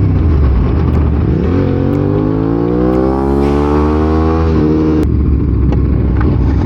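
Two-cylinder motorcycle engine accelerating hard at freeway speed, its pitch rising steadily for about three seconds and then dropping sharply at an upshift a little past halfway.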